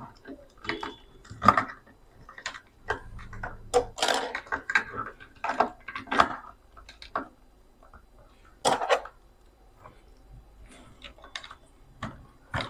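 Irregular plastic clicks, taps and rattles as a battery pack and its wires are pushed into a toy RC rock crawler's battery compartment and the compartment is fitted shut, with a few louder clusters about four and nine seconds in.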